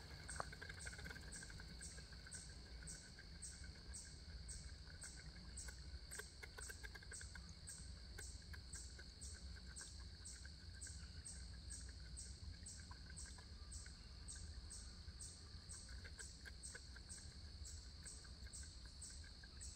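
Faint insect chorus: a steady high-pitched trill with a second insect chirping evenly about twice a second, over a low steady rumble.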